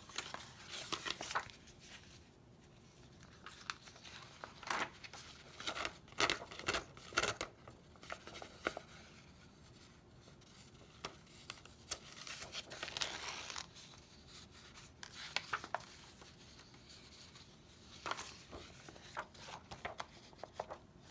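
A sheet of heavy photo paper being handled and turned over by hand: irregular bouts of rustling and crinkling with a few sharp clicks, separated by quieter pauses.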